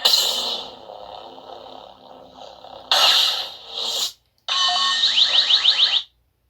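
Lightsaber sound effects played from a Proffieboard through the hilt's small 8 ohm 3 watt speaker: a sudden loud burst at the start fading into a steady buzzing hum, another sharp burst about three seconds in, then a buzzing effect with a quick run of rising chirps that cuts off abruptly.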